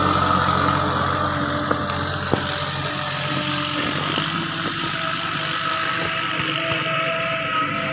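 Sonalika mini tractor's engine running steadily as it drives over spread straw, with a couple of short knocks about two seconds in.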